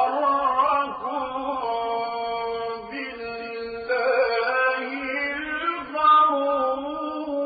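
Male voice reciting the Quran in the melodic, drawn-out tajweed style, holding long ornamented notes, with short breaths about three and six seconds in.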